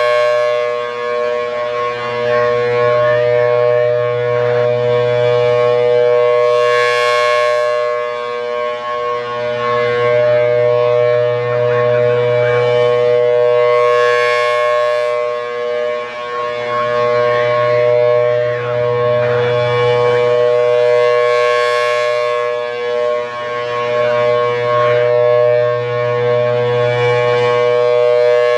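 Federal Signal Thunderbolt 1000AT siren sounding its steady Alert tone, a two-note chord held at one pitch. The sound swells and fades about every seven seconds as the slowly rotating horn sweeps past.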